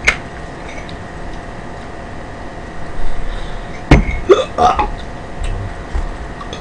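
A quiet room with a faint steady whine; about four seconds in comes a sharp knock, followed by two short pitched vocal sounds like hiccups.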